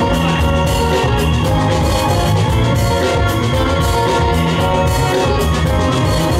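Loud music with a steady drum beat and sustained pitched instrumental lines, played over the venue's sound system for the dancers.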